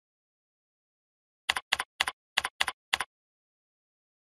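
Six computer keyboard keystrokes, clicking about a quarter second apart, as a shell command is typed at a terminal prompt.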